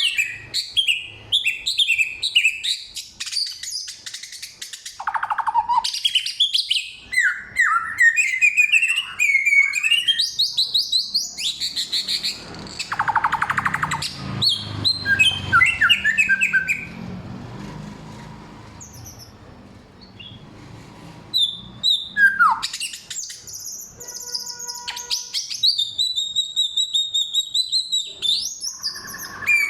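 A samyong songbird singing a loud, clear, varied song of rapid chirps, trills and whistled phrases, copying the calls of many other birds. It goes mostly quiet for a few seconds past the middle, then picks up again.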